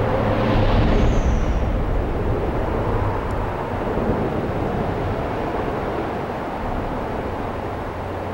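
Steady rumble of highway traffic with a faint hum, loudest about a second in and then slowly fading. A brief high squeal sounds about a second in.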